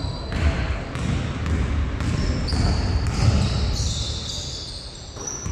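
Basketball game on an indoor court: a basketball dribbled and bouncing on the floor in repeated thuds, with short high squeaks, typical of sneakers on the court.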